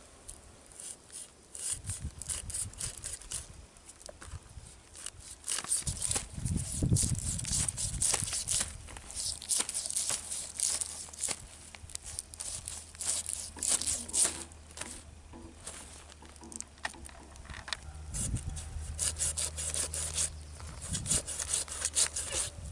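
Scales being scraped off a large rohu fish against a fixed boti blade: quick, irregular scratchy strokes, often in rapid runs.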